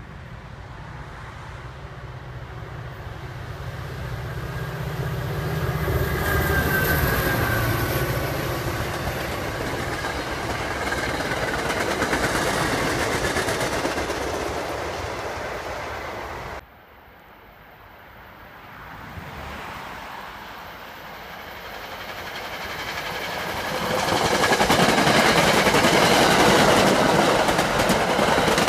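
Passenger trains passing at speed, with the rolling rumble of wheels on rail. One train's noise builds and carries on until it cuts off abruptly about two-thirds of the way through, then a second train approaches and passes loudly near the end.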